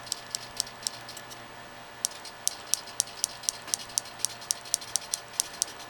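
Eye servo of a hobby robotic head stepping the eyes around under wireless control: a regular run of small, sharp ticks, about four a second, with a short break about a second and a half in. A faint steady hum runs underneath.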